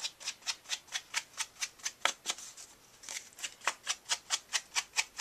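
Stamping sponge dabbed quickly against glossy white paper, blending ink onto its edges: a run of light pats, about six a second, with a short pause a little past the middle.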